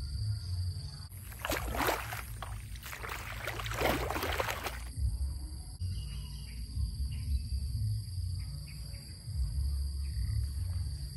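Steady high-pitched insect chorus with low wind rumble on the microphone. About a second in, a burst of rough splashing or rustling noise lasts about three and a half seconds, then stops suddenly.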